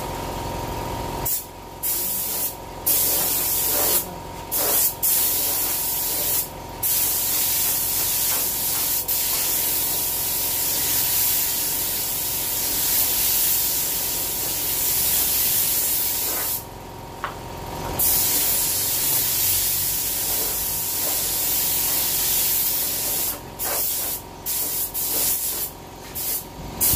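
Paint spray gun hissing as it sprays paint in long passes, broken by short pauses when the trigger is let go, with a longer pause about two-thirds in and several quick stops near the end.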